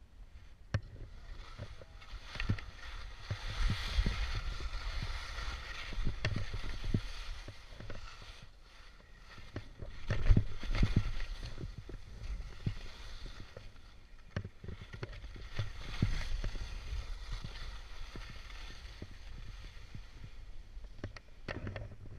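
Skis scraping and sliding slowly down steep snow, with low wind rumble on the camera microphone and scattered knocks from skis and poles. The loudest scrape comes about ten seconds in.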